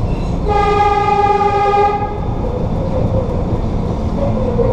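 A trolley horn sounds one steady blast lasting about a second and a half, starting about half a second in. Under it runs the constant low rumble of the light rail car moving through the tunnel.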